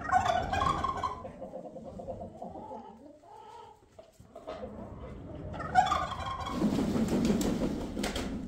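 A tom turkey gobbling twice, at the start and about six seconds in, with chickens clucking between. A rough, noisy sound follows the second gobble for about two seconds.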